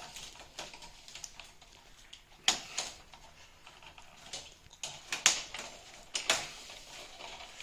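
Heavy-duty plastic zip ties being snipped off with a cutting tool: about half a dozen short, sharp snaps and clicks with light handling noise between them.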